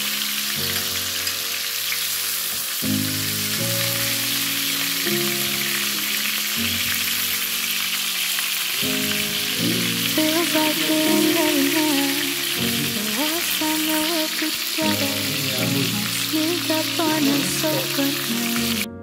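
Pork sizzling as it sears in a frying pan, a steady crackling hiss under background music, cutting off abruptly near the end.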